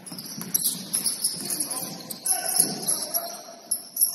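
Basketball game on an indoor court: a ball bouncing and high-pitched sneaker squeaks, with players' voices in the background.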